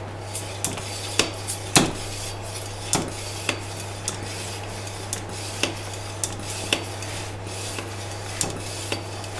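HD35K high-pressure PCP hand pump being worked to fill an air cylinder toward 300 bar: metallic clicks and clunks from the strokes, irregularly spaced, over a steady low hum.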